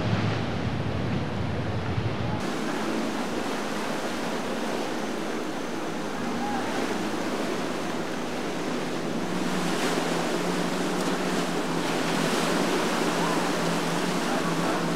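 Rushing, splashing water of boat wakes and rough current breaking, heard as a steady wash. A low wind rumble on the microphone cuts off about two seconds in.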